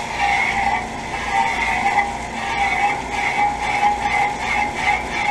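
Garden-hose spray driving the condenser fan blades of a York central air conditioner, set spinning while the unit is off: a steady rushing with a rhythmic pulse about two to three times a second.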